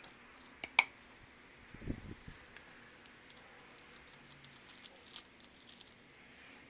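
Metal brake caliper parts and a threaded parking-brake adjuster spindle clinking and clicking as they are handled, with a sharp click a little under a second in and a dull knock around two seconds, then a string of light small clicks.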